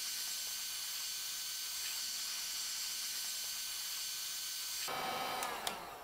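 Electric heat gun running, a steady hiss of blown hot air with a faint low hum, shrinking heat-shrink tubing onto a crimped battery cable lug. The hiss cuts off about five seconds in.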